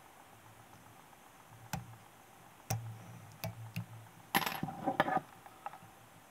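Light clicks and taps from small metal fly-tying tools being handled at the vise as the whip finish is completed. A handful of separate clicks comes first, then a short cluster of louder clattering about four and a half seconds in.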